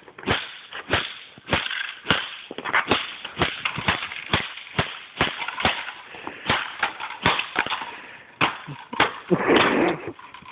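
A broken piece of tennis racket repeatedly slamming into a computer motherboard, sharp hard hits about two or three a second, with a longer, louder crashing stretch near the end.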